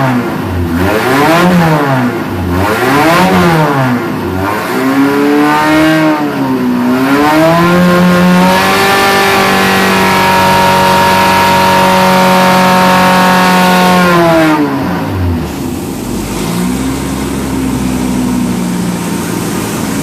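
Triumph TR4 four-cylinder engine, built for fast road use, running on an engine dyno. It is blipped up and down about once a second, then climbs and holds high revs steadily for about six seconds. Then it drops back to idle near the end.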